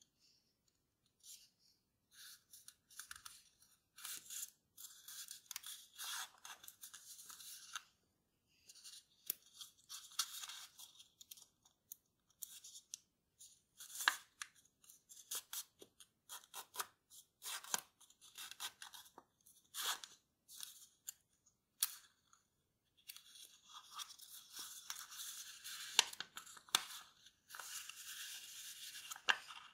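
Kraft paper being folded and creased by hand: irregular bouts of crisp rustling and crinkling, with sharp snaps as folds are pressed flat, the loudest near the middle and the end, and short pauses between.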